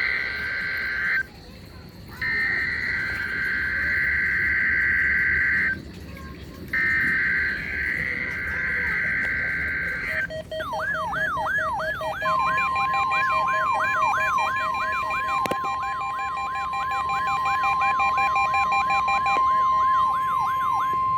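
NOAA Weather Radio SAME header data bursts: a harsh digital screech sent three times with about a second's gap between them. Then handheld weather alert radios activate for a Required Weekly Test, sounding a siren-like alarm that sweeps upward about twice a second over steady beep tones, and all of it cuts off together at the end.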